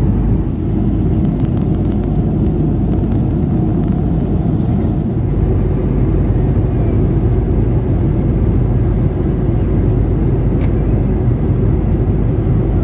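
Steady low rumble inside the passenger cabin of an Airbus A330-200 in flight: engine and airflow noise, even and unchanging.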